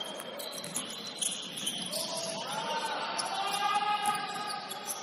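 Basketball game sounds on a hardwood gym court: sneakers squeaking in short, high-pitched chirps as players run and cut, with a ball being dribbled.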